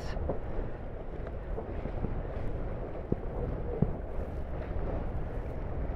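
Steady wind noise on the microphone and water rushing along the hulls of a Tornado catamaran under sail, with a couple of faint ticks near the middle.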